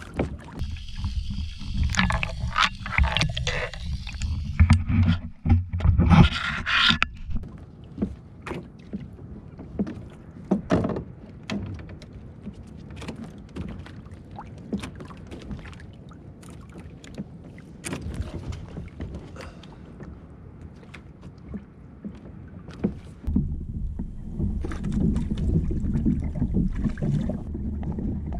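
Handling noise aboard a fishing kayak at sea: many scattered clicks and knocks of rod, reel and tackle being worked, over water and wind noise. The first several seconds are louder and busier, and from a little before the end a steadier low rush of water and wind takes over.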